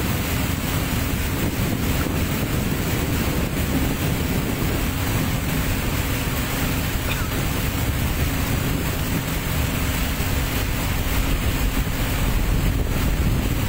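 Motorboat under way: a steady rumble of the engine with water rushing along the hull and wind buffeting the microphone, growing slightly louder near the end.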